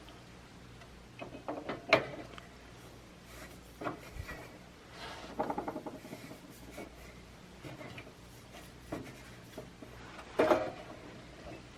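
Clicks, knocks and rubbing from a plastic Mr. Heater Buddy propane heater and a 1 lb propane cylinder being handled while the cylinder is fitted onto the heater. A sharp knock comes about two seconds in, a quick run of rattling ticks about five seconds in, and a cluster of louder knocks near the end.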